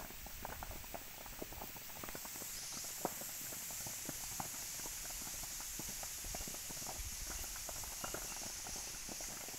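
Crackling of a hillside slash-and-burn (jhum) fire: irregular sharp pops and snaps, several a second, over a steady high hiss that grows stronger a few seconds in.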